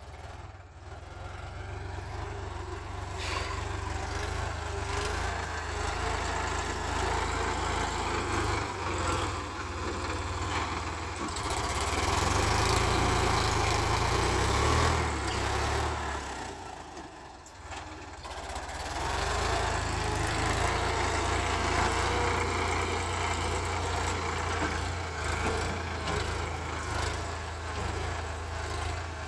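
Sonalika DI 745 Sikander tractor's diesel engine running steadily as it drags a levelling blade through loose soil. It is louder about midway, where it passes close, and dips briefly a few seconds later.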